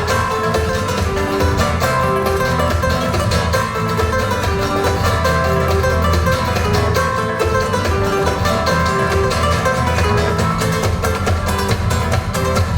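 Recorded music played over a hi-fi system: plucked-string instruments over a steady bass line and beat.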